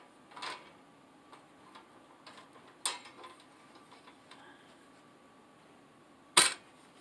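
Metal parts of a TV antenna (rods, wire grid and mounting bracket) clicking and knocking together as they are fitted by hand: a few sharp clicks, the loudest near the end, with light ticks between.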